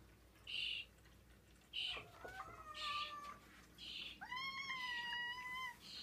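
Birds in a ceiling vent give short scratchy calls about once a second, while a house cat meows twice, the second meow longer, about a second and a half.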